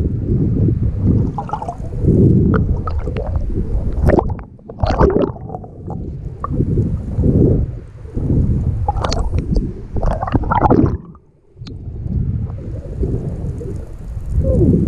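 Muffled underwater gurgling and sloshing against an action camera's waterproof housing, coming in uneven surges, with sharper splashy bursts about four and nine seconds in and a brief lull around eleven seconds.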